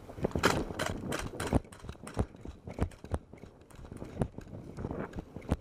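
Gas-blowback airsoft guns firing in irregular semi-automatic shots, each a sharp clack. The shots come quickly in the first second and a half, then more scattered.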